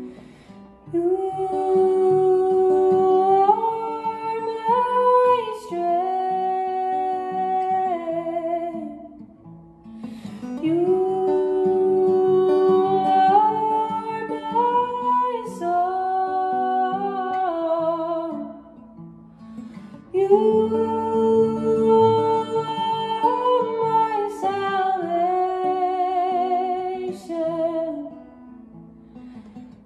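A woman singing with an acoustic guitar: three long wordless sung phrases of held notes, with short breaks near a third and two-thirds of the way through.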